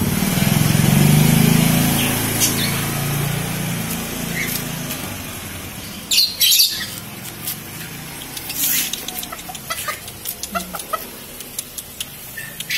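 Serama bantam rooster moving on a tiled floor: a loud, brief flurry of wing flapping about six seconds in, followed by scattered light ticks as it steps about. A low rumble fades away over the first few seconds.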